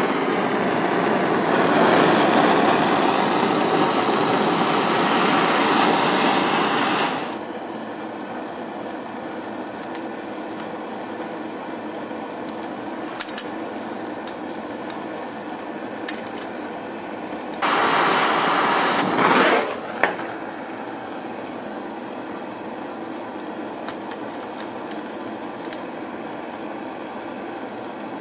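A blowtorch flame hissing steadily against a padlock, melting out its plastic core. It is loud for the first several seconds and again for about two seconds past the middle, with a lower steady hiss in between, and there is a sharp click just after the second loud stretch.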